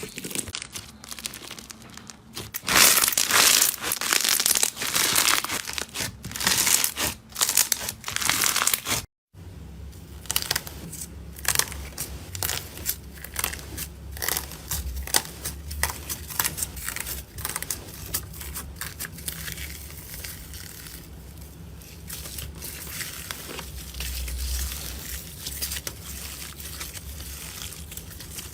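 Slime being squeezed and worked, giving dense crinkly crackling and crunching. About nine seconds in it cuts out for a moment, then sparser crackles and pops continue over a low hum.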